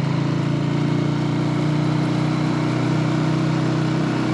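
A Honda 125 motorcycle's single-cylinder four-stroke engine running at a steady pitch while being ridden.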